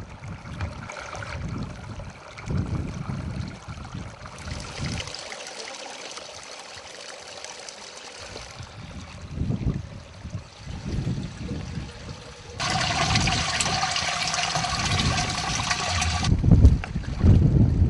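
Spring water pouring from a spout into a metal milk can: a steady splashing pour with a ringing tone from the can, lasting a few seconds near the end. Earlier, a mountain stream runs over stones, with wind gusting on the microphone.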